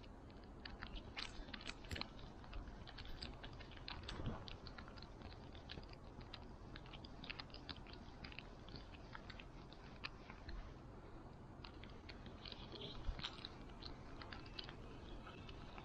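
Screwdriver tightening the small cover screws on a Daiwa Goldcast 508RL spincast reel: faint, irregular small clicks and scrapes of the blade in the screw slots and of the reel turning in the hand.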